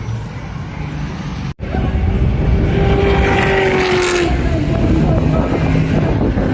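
Cars running on a race track, engines at high revs, with one car passing close by, loudest about three to four seconds in. The sound cuts out for an instant about a second and a half in.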